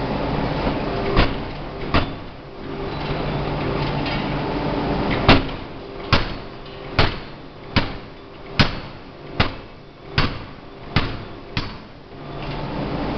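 A 2-ton open-die forging hammer striking a red-hot workpiece held in tongs: two blows, a pause of about three seconds, then a run of nine blows at a bit more than one a second. A steady machinery hum with low drone tones runs underneath.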